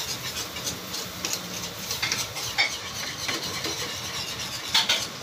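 Wire whisk stirring a thick cream sauce in an aluminium pan, with a steady swishing and small repeated scrapes and taps of the wires against the metal, and one louder clink just before the end.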